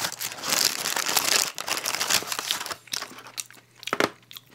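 Paper fast-food packaging crinkling and rustling as a hand reaches in for a chicken nugget. It is dense and loud for about the first two and a half seconds, then a few lighter rustles and a sharp click near the end.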